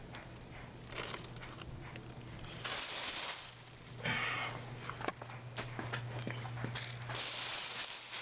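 Plastic wrapping being torn and pulled off a portable generator, in several rustling, crinkling bursts with small clicks, over a steady low hum.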